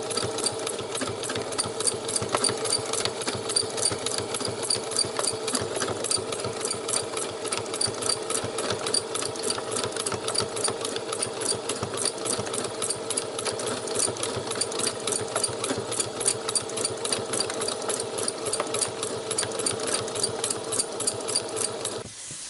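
Domestic sewing machine doing free-motion embroidery: a steady motor hum under a fast, even run of needle strokes. It stops just before the end.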